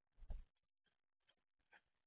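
House sparrows at a seed-filled platform feeder: a soft thump about a quarter second in, then a few faint light clicks and taps as they peck and shuffle on the tray.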